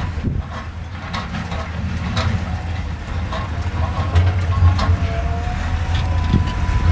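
Heavy diesel engine of an excavator running steadily under load. Scattered short knocks and clatter run through it, and a thin whine joins about two-thirds of the way in.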